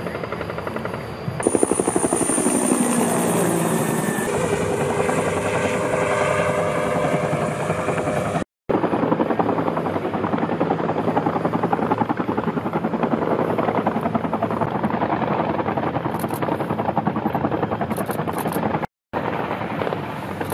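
Military helicopters flying low: the steady rapid beat of the rotor blades with turbine whine. A falling whine about two seconds in as one passes, and the sound cuts off for a moment twice.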